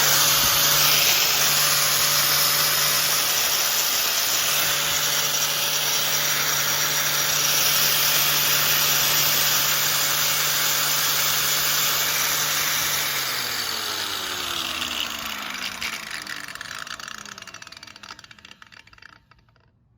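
Brand-new Metabo HPT angle grinder on its first run, spinning free with no load at a steady high speed. About 13 seconds in it is switched off and winds down, its pitch falling for several seconds until the disc stops. It sounds a little noisy but runs without vibration.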